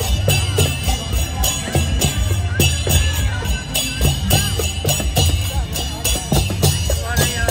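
Traditional Lao procession music: a drum and jingling metal percussion keeping a quick, steady beat, with people's voices calling and chattering over it.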